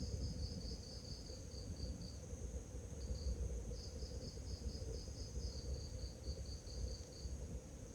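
Crickets chirping in runs of rapid, evenly spaced high chirps, about five a second. There is a long run, a brief pause with a short burst, then another long run, all over a steady high insect hum and a low background rumble.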